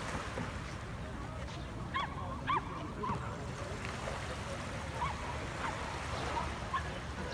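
Short bird calls, about seven in a row at irregular intervals, over a steady rush of surf and wind.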